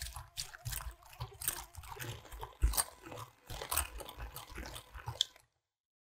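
Balloon whisk beating egg yolks and sugar in a glass bowl, its wires clicking and scraping against the glass in a quick, irregular run of strokes that stops about five and a half seconds in.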